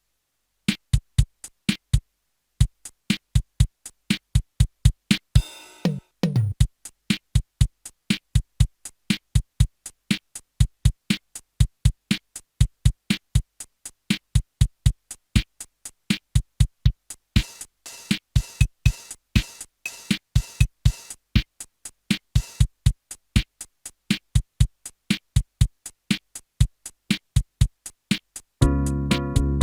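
Yamaha PSS-570 portable keyboard's built-in drum sounds playing a steady electronic beat. Around six seconds in there is a hit that falls in pitch, and hissier cymbal-like hits come in partway through. Near the end a sustained keyboard chord comes in.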